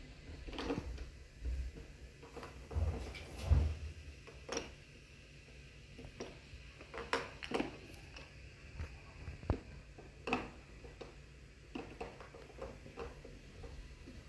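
Irregular light knocks and clicks in a room, with a few dull thumps in the first four seconds, the loudest about three and a half seconds in.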